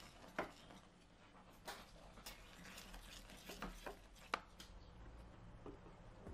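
Wooden spoon stirring thickening oatmeal in an enamel saucepan, with faint scattered taps and clicks of the spoon against the pot.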